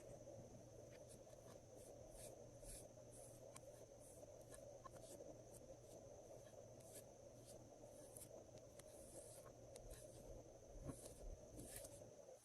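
Faint, irregular sticky clicks and crackles of glossy slime being pressed and worked by hand, over a steady low background noise.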